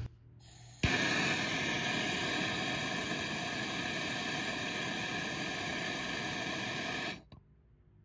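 Handheld MAP gas torch flame hissing steadily while it heats a 3/8-inch copper liquid-line joint at a condenser service valve for soldering. The hiss starts abruptly about a second in and cuts off abruptly about six seconds later when the torch is shut off.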